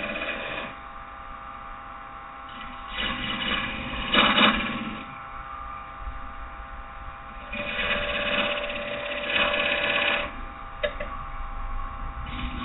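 Wood lathe motor running steadily while a carbide-tipped detailer tool cuts grooves into spinning green oak. The cutting noise comes in passes, about three to five seconds in and again from about eight to ten seconds, with a short click shortly after.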